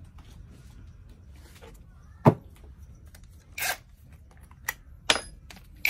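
Cordless tool parts handled on a wooden workbench: a sharp knock about two seconds in, a short scrape, then a couple of sharp clicks near the end, over a low steady background hum.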